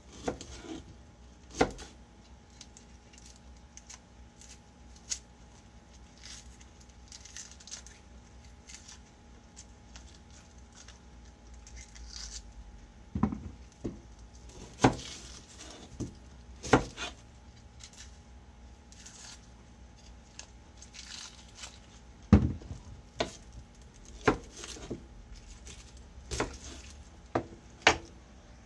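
Kitchen knife knocking and scraping on a plastic cutting board as small onions are peeled by hand, with the dry papery onion skins rustling and crackling. The knocks come singly and irregularly, a few seconds apart, with several sharp ones in the second half.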